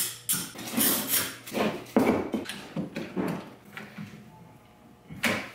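Bar clamps and quick clamps clattering as they are picked up and set down on a plywood workbench: a quick run of sharp clacks and knocks, thinning out after about four seconds, with one last knock near the end.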